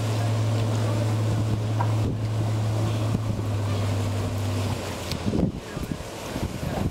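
A fishing boat's engine drones steadily as a low, even hum, then cuts off about two-thirds of the way through. After that, gusts of wind buffet the microphone.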